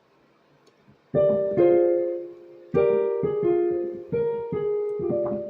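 Keyboard played by hand: after about a second of quiet, a slow run of about seven chords, each struck and left to ring and fade.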